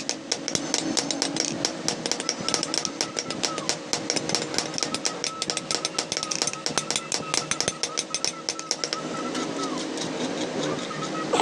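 Rapid repeated hammering on hot steel while a sickle blade is forged, several blows a second, stopping about nine seconds in. A steady wavering whine runs alongside.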